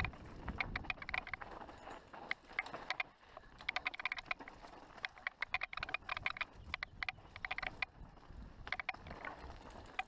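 Mountain bike descending a rough dirt forest trail: bursts of rapid clicking and rattling from the bike as it runs over bumps and roots. There is a low rumble of tyres and air in the first second.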